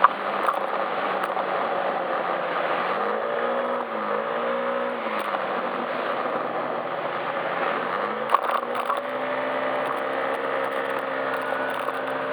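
Yamaha Majesty S SP scooter's 155 cc single-cylinder engine running under way, its pitch rising and dipping twice between about three and five seconds in, then climbing and holding from about eight seconds in, over a steady rush of wind. A sharp knock at the start and another about eight seconds in.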